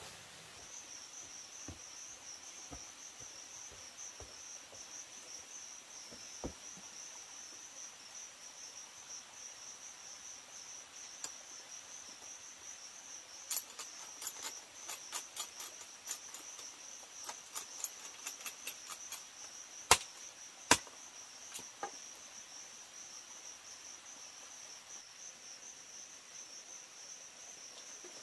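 Insects trilling steadily at a high pitch, with a few faint thumps, then a quick run of light taps and two sharp knocks close together about two-thirds of the way through.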